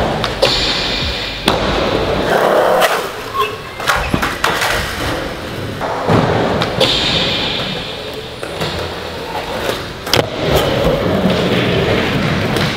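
Skateboard wheels rolling across the skatepark, broken several times by sharp clacks of the board popping and landing during a trick line.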